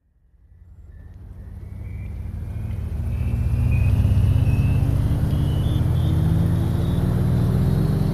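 A motor running with a steady low hum that fades in over the first few seconds, with a faint whine climbing slowly in pitch throughout.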